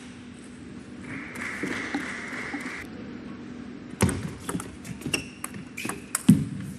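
Table tennis ball clicking off the bats and the table in a rally, starting about four seconds in with hits roughly every half second, and one heavier thud near the end.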